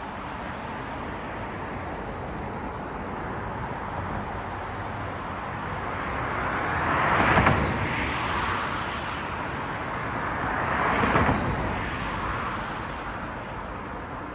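Steady city road traffic at night: a constant hum of tyres and engines, with two vehicles passing close, one about halfway through and another a few seconds later, each swelling and fading away.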